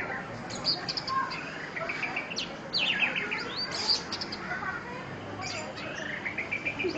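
Orange-headed thrush singing a varied, fast song of short whistled notes, with quick runs of notes falling in pitch at the start and about three seconds in, and a run rising in pitch near the end.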